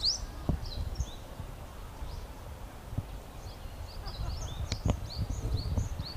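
Brown-eared bulbuls calling: quick flurries of short, high chirps at the start and again from about four seconds in, over a steady low rumble of background noise.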